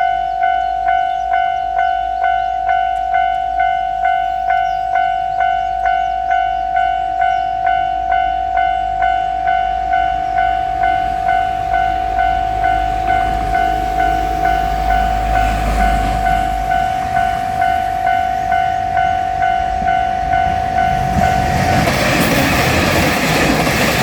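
Japanese level-crossing warning bell ringing a steady electronic 'kan-kan' about twice a second. A diesel railcar's engine rumble builds underneath, and the train passes loudly near the end, drowning the bell.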